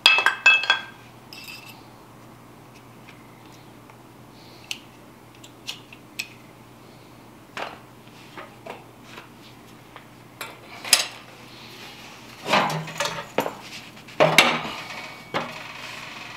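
Metal clinking and clattering of hand tools and sheet-metal parts being handled on an old oil burner's blower housing. A few sharp ringing clinks open it, light ticks follow, and two longer bouts of clatter come near the end, over a faint steady hum.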